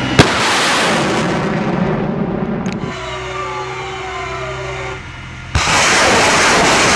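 Truck-mounted multiple rocket launcher firing: a sharp crack and the roar of a rocket leaving the launcher, fading with a falling whine over a few seconds, then a second launch about five and a half seconds in with a sudden loud roar.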